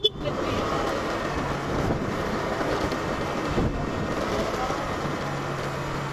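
Small motorbike engine running steadily while riding, with wind and road noise; a low steady hum comes in about five seconds in.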